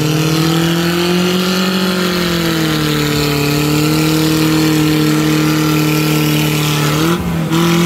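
Off-road buggy engine held at steady high revs as the buggy claws up a mud bank out of a water-filled pit, its wheels spinning. The pitch swells slightly early on and dips briefly about seven seconds in.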